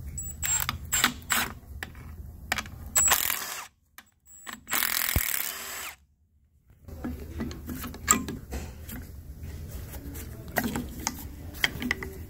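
Milwaukee cordless power tool running in short bursts to back out the bolts holding a transmission fluid cooler, mixed with clicks and clinks of the socket and loose parts. The longest and loudest run lasts about a second, around the middle. The sound cuts out suddenly twice.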